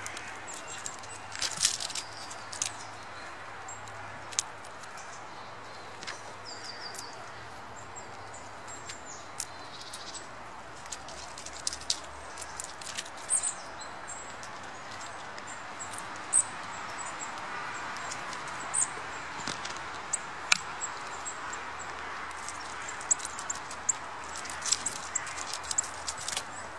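Scattered small clicks and scratches as Eurasian red squirrels take sunflower seeds from a hand and grip the bark, with a few brief high chirps of small birds over a steady outdoor hiss.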